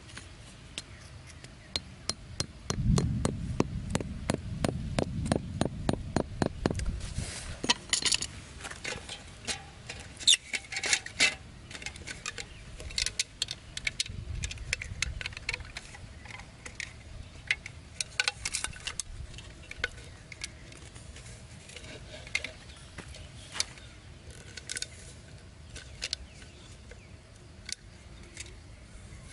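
Quick, even taps of a hatchet on bamboo, about five a second, for some four seconds, followed by scattered clicks and light metallic clinks as an aluminium drink can and bamboo stakes are handled and fitted together.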